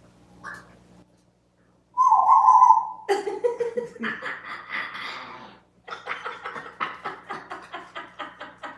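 An African grey parrot gives one loud, slightly falling hoot about two seconds in, then a noisy vocal outburst, followed in the second half by quick, rhythmic laughter.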